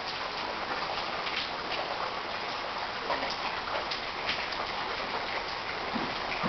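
Steady rush of floodwater, rainwater overflowing from a canal and streaming along the road, with many small splashes and drips over it.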